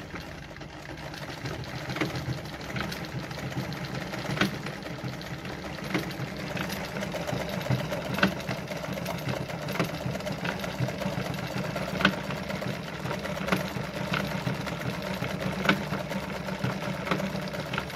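Brother Pacesetter ZZ2-B702F sewing machine running steadily, its motor humming as the needle sews a decorative pattern stitch through denim, with a sharper click every second or two. It picks up speed over the first couple of seconds, then runs on without stopping.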